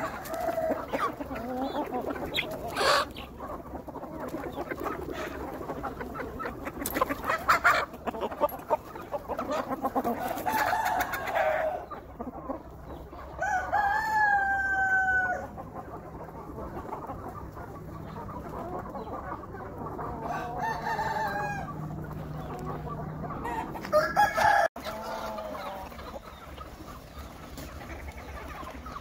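A flock of free-range country chickens clucking and calling, with a rooster giving one long crow about halfway through and shorter calls later.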